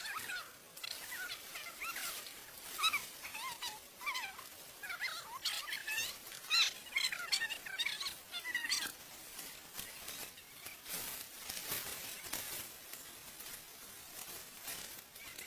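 Animal calls: many short chirping calls in quick succession, which stop about nine seconds in, leaving a light crackling rustle.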